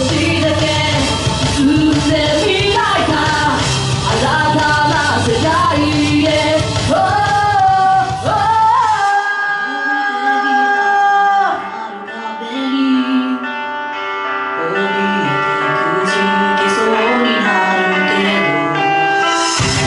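Woman singing a song live into a handheld microphone over backing music. About nine seconds in the bass and beat drop away, leaving held chords under her voice, and the full backing comes back near the end.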